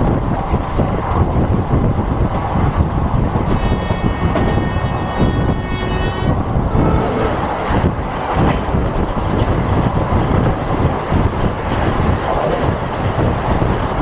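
Steady rumble and clatter of a passenger train running at speed, heard from an open coach door, with a second passenger train rushing past on the next track in the second half. A train horn sounds for about two and a half seconds a few seconds in.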